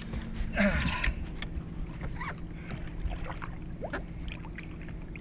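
Water splashing and sloshing as a large blue catfish is held in the water by a lip gripper beside a boat while it is revived, with a splash about a second in. A steady low hum runs underneath.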